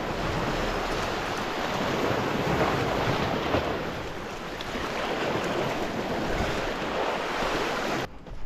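Sea surf surging and washing over rocks, with wind buffeting the microphone; it cuts off suddenly near the end.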